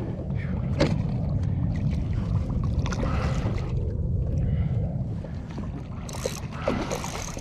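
Kayak on open water: a steady low rumble of wind on the microphone with water sloshing against the hull, a single sharp knock about a second in, and two short hisses near the end.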